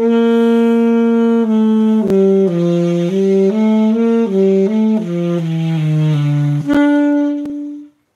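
Alto saxophone playing: a held note, then a run of short notes stepping mostly downward into the low register, and a final held higher note that stops shortly before the end. It is played with the chin bunched up and tense, which puts extra pressure on the reed.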